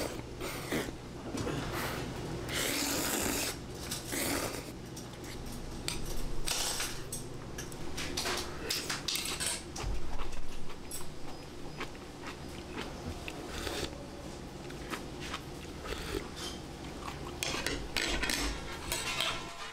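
Dishes and cutlery clinking and knocking in short, irregular clicks, with one louder knock about halfway through.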